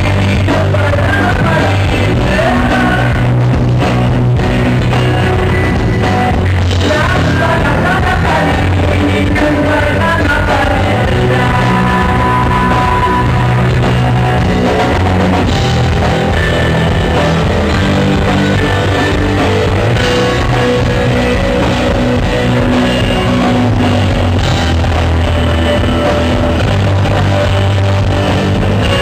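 Live rock band playing loud: distorted electric guitars, bass and drum kit, with a man singing lead.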